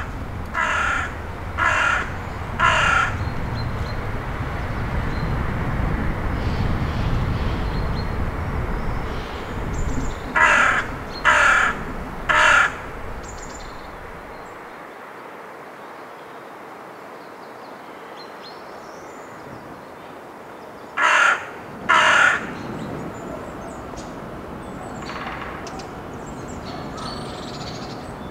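A crow cawing in short series: four harsh caws about a second apart, three more some ten seconds later, and two close together near the end. Under the first half runs a low, steady rumble that fades out midway.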